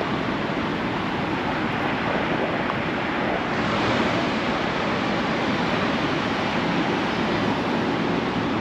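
Steady city traffic noise, a continuous wash of passing vehicles that swells a little about four seconds in.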